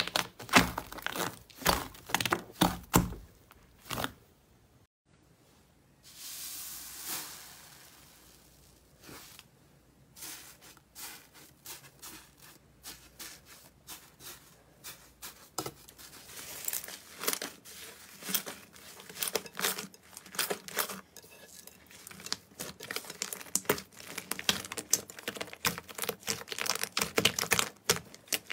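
Hands squishing, pressing and pulling apart thick slime, making dense sticky clicks, crackles and small air-bubble pops, with a brief lull about five seconds in. In the middle, a fluffy, foamy slime is torn and stretched with a soft crackling tear.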